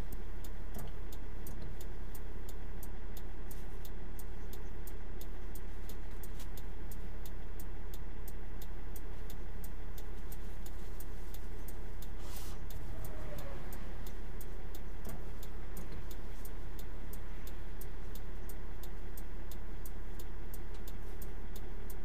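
Semi-truck diesel engine idling with a steady low hum under a rapid, even ticking like a flasher relay with the hazard lights on while parked on the shoulder.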